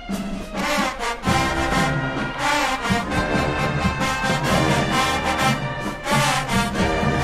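High school marching band playing, with the brass coming in at the start and drums joining about a second in.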